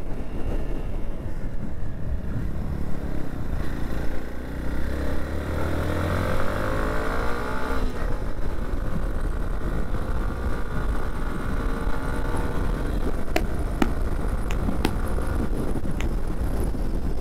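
Motorcycle being ridden, its engine running under steady wind and road noise, the engine pitch rising and falling for several seconds a few seconds in. A few sharp clicks near the end.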